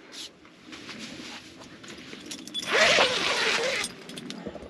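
Tent door zipper pulled open in one long rasping stroke about three seconds in, with soft shuffling and rustling before it.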